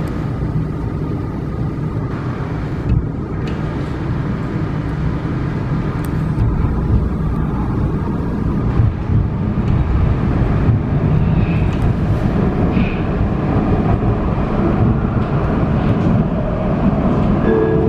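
Vienna U-Bahn U1 subway train running, heard from inside the passenger car: a steady, loud rumble of the wheels and running gear that grows a little louder after about six seconds.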